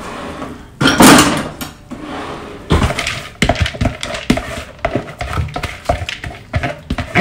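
Soaked split black lentils are poured from a glass bowl into a plastic bowl of water, with a loud splash about a second in. Many short knocks and clinks of the bowls follow as the last lentils are shaken out.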